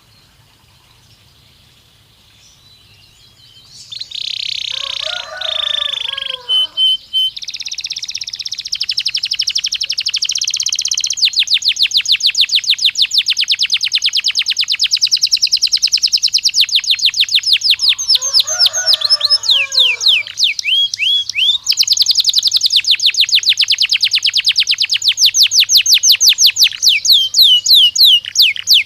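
Domestic canary singing a stimulus song. After a quieter first few seconds it breaks into long, loud rapid trills of repeated high notes, with two lower warbled phrases in between.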